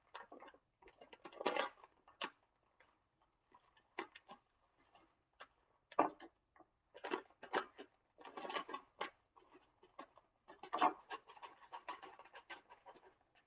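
Shredded cheese shaken from its bag into a measuring cup: bursts of bag crinkling and rustling mixed with light clicks and taps, coming and going in short spells.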